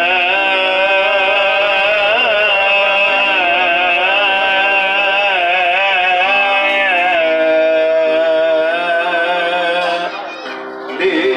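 A male singer's amplified voice singing a long, ornamented Arabic melodic line with vibrato over held keyboard chords, in Middle Eastern style. The voice stops about ten seconds in.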